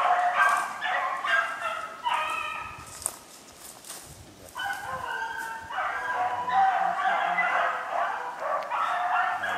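A pack of beagles baying in chorus as they run a swamp rabbit's track. The chorus thins and drops for about two seconds a little before midway, then the full pack picks up again.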